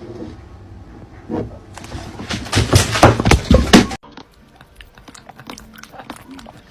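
A cat lapping water from the bottom of a tall beer glass with its head inside it: a quick run of loud wet clicks and knocks, about five a second, that stops abruptly. Then fainter scattered clicks as a cat licks and bites at the neck of a plastic bottle.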